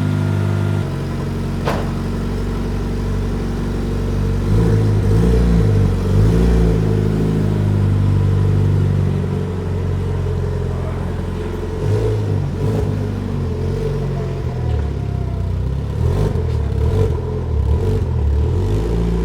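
Mitsubishi Lancer Evolution's turbocharged four-cylinder engine running while the car is being moved, its revs rising and falling several times. A single sharp click a couple of seconds in.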